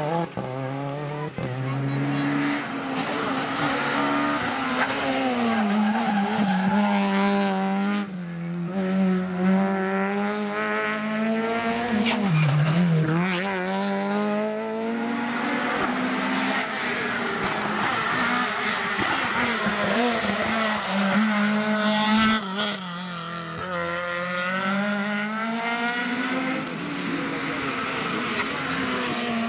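Rally cars (a Renault Clio and Peugeot 208s) driven hard one after another, engines revving high and rising and falling in pitch through gear changes and lifts, with sharp drops in revs about 8, 13 and 22 seconds in.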